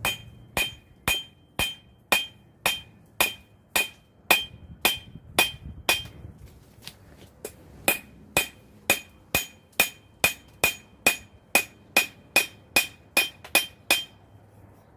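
Hand hammer striking a hot knife blade on an anvil, forging the bevels: steady blows about two a second, each with a bright metallic ring, with a short pause about halfway through.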